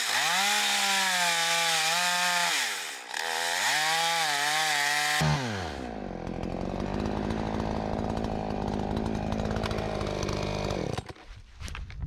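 Chainsaw running at high revs, its pitch sagging twice under load as it cuts wood. About five seconds in it drops down to a steady idle, and it shuts off near the end.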